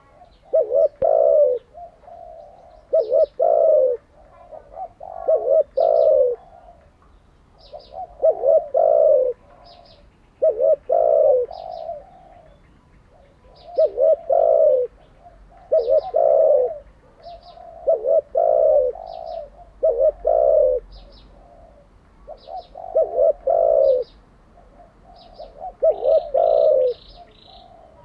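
Spotted dove cooing: a phrase of several quick, low, throaty coos repeated about every two to three seconds. Faint high chirps sound about once a second between the phrases.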